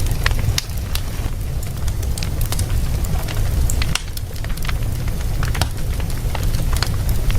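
Wood fire burning in a fireplace: irregular crackles and sharp pops from the burning logs over a low, steady rumble of the flames.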